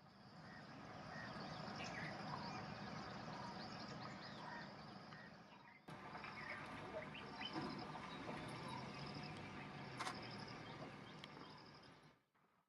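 Wild birds chirping and calling in scattered short notes over a steady outdoor hiss, with a pulsing high-pitched trill. The sound breaks off abruptly about six seconds in, resumes, and fades out near the end.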